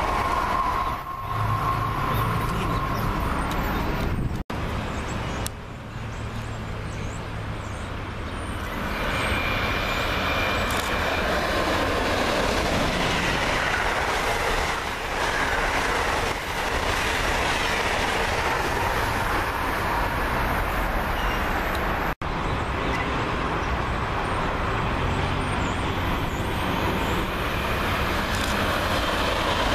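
Amtrak passenger train of Amfleet coaches passing at speed on electrified track, a steady loud rush and rumble of wheels on rails. The sound breaks off for an instant twice.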